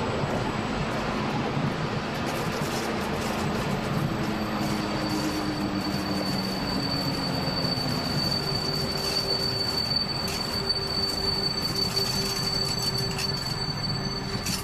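Electric train running over the rails with a steady rumble, its steel wheels setting up a steady high squeal a few seconds in that holds on.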